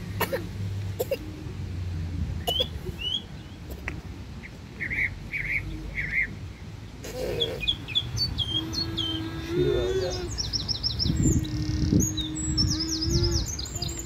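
Small birds chirping and singing: a few short high calls at first, then quicker, busier runs of high notes from about halfway on. Under them run a steady low hum and a few low bumps.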